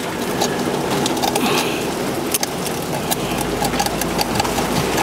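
1940s Chevrolet truck's gas straight-six being cranked over by its starter, turning over steadily without catching.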